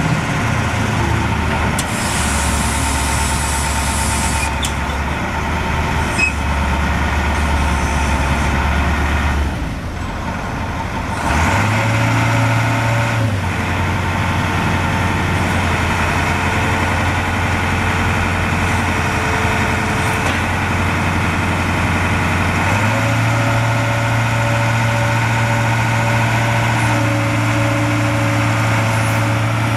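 Caterpillar 3208 V8 diesel of a digger derrick truck running under hydraulic load as the boom is lowered. Its engine speed dips about ten seconds in, then steps up to a higher steady speed and rises again a little past twenty seconds. A hiss is heard for about two seconds near the start.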